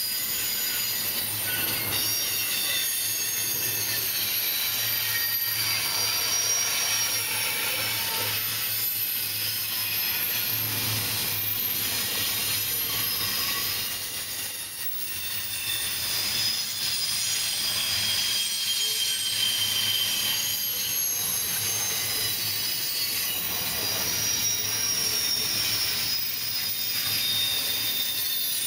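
Double-stack intermodal container cars of a freight train rolling past close by, their steel wheels squealing in several high, shifting tones over a steady rumble and rattle. The sound dips briefly about halfway through.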